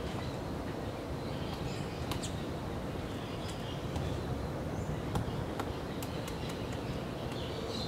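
Woodpecker pecking at wood: a scatter of sharp, irregular taps, a pair about two seconds in and a run of single taps between about five and eight seconds. A steady low rumble lies under it throughout, with faint bird chirps.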